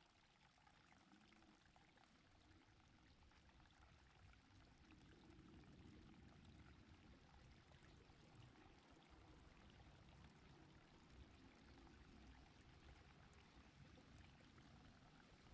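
Near silence: faint, even background noise with no distinct events, growing slightly louder a few seconds in.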